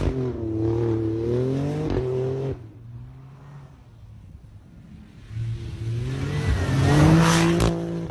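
Alfa Romeo Stelvio engine revving as the SUV accelerates on snow, its pitch rising and falling. The sound drops away about two and a half seconds in, returns about five seconds in and builds to its loudest near the end, with a sharp crack shortly before the end.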